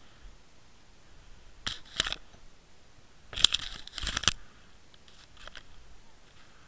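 Muffled underwater clicks and crunching knocks picked up through the sealed housing of a Water Wolf underwater fishing camera as it swings and spins on the line. A couple of clicks come early, and a louder rapid cluster of crackling knocks comes about three and a half to four seconds in.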